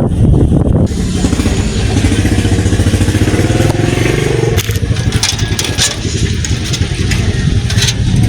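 A vehicle engine revving up, its pitch rising steadily for about three and a half seconds, then dropping back, with some clatter after.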